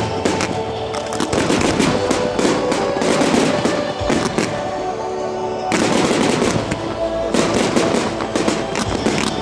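Fireworks going off in rapid succession: dense crackling and bangs from bursting shells, thinning briefly around the middle. Music with long held notes plays under them.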